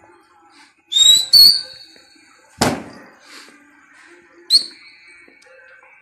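Loud, piercing whistles: two in quick succession about a second in and one more near the end, with a single sharp bang between them. This is a pigeon fancier whistling at his flock of domestic pigeons as they circle overhead.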